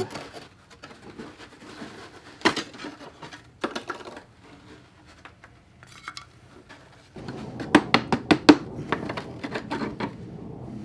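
Hard ceramic clinking and tapping as furnace coil plates are worked loose and broken off along a score line: a few separate clicks, then about seven seconds in a quick run of sharp knocks with scraping.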